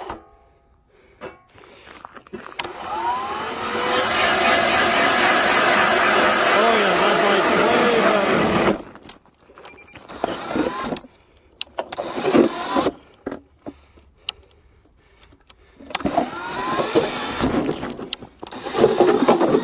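StrikeMaster Lithium battery-powered ice auger running: its motor whine rises and falls for several seconds as it is warmed up, stops, and starts again near the end as the bit bores into the river ice.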